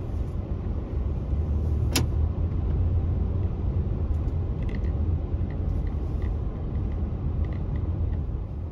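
Steady low rumble of a car driving slowly, heard from inside the cabin, with a single sharp click about two seconds in.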